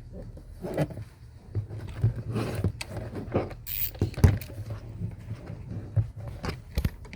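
Irregular clicks, knocks and scrapes of hard plastic and metal computer parts being worked by hand, with a steady low hum underneath.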